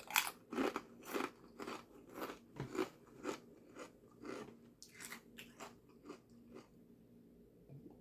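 A person chewing a mouthful of grinder sandwich, with crisp crunches about twice a second that die away near the end.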